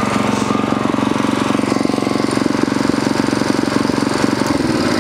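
Small gas engine of an Earthquake Victory rear-tine tiller running steadily, its pitch dropping near the end as the engine slows.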